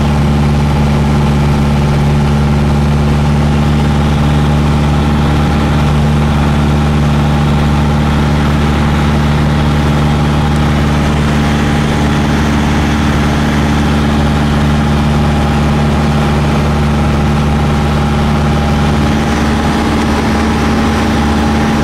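Piper PA-28 light aircraft's piston engine and propeller droning steadily in cruise, heard from inside the cabin, the note shifting slightly near the end.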